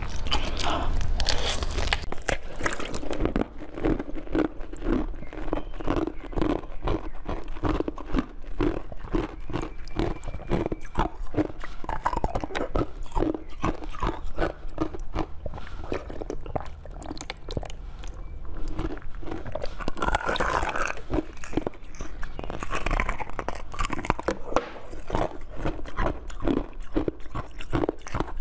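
Close-miked eating: jelly sweets bitten and chewed, with many quick crunches following one another throughout.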